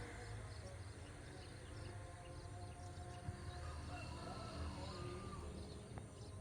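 Rural outdoor ambience: birds chirping over a steady low rumble.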